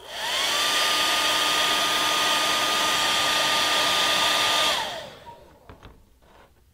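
Handheld hair dryer switched on, its motor whine rising to a steady pitch over the rush of blown air, running for about four and a half seconds, then switched off, the whine falling away as the motor spins down. A few light knocks follow.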